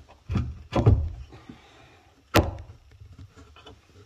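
Parts being slid and set into place: two dull thumps in the first second, then one sharp knock about two and a half seconds in.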